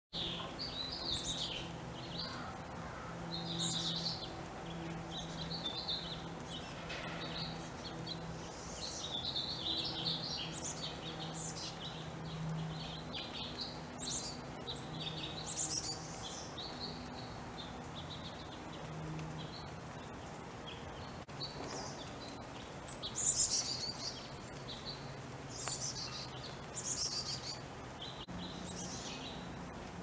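Chickadee fledgling giving short, high-pitched dee-dee calls, repeated irregularly throughout, over a low background hum.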